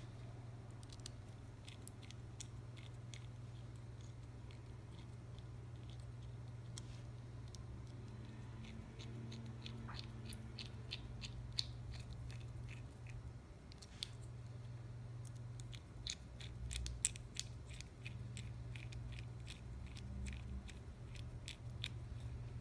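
Precision screwdriver turning the tiny screws of a Cheerson CX-10 nano quadcopter's plastic frame: faint runs of rapid small clicks and scrapes, the bit working in the screw heads, over a steady low hum.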